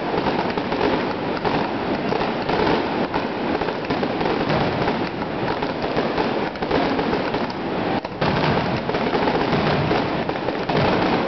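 A fireworks display going off in a dense, rapid run of bursts and crackles with no real gaps, dipping only briefly about eight seconds in.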